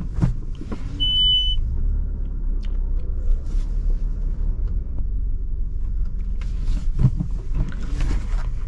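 Low steady rumble of a Maruti Suzuki car's engine heard inside the cabin during a slow reversing manoeuvre. A single short high beep about a second in is the reverse-gear warning chime. A few light clicks from the controls are also heard.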